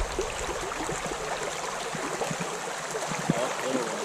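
Trout stream running and babbling steadily, with many small water plinks through it.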